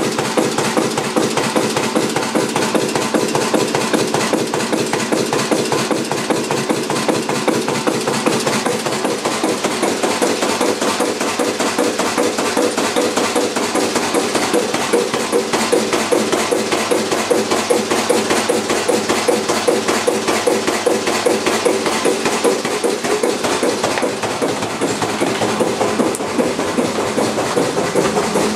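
Kromhout 2H3 marine diesel engine running steadily, with a rapid, even knocking beat.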